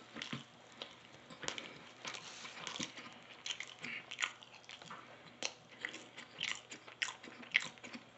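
Close-up chewing of a crispy fried chicken sandwich, with irregular crunchy clicks and crackles of the breading.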